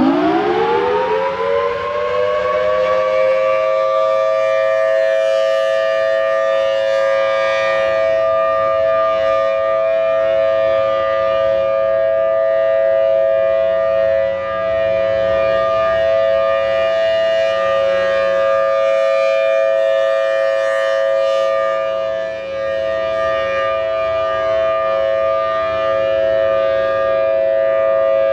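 Federal Signal Thunderbolt civil defense siren winding up to pitch in the first second or two, then sounding a loud, steady two-note chord. Its loudness dips briefly twice along the way.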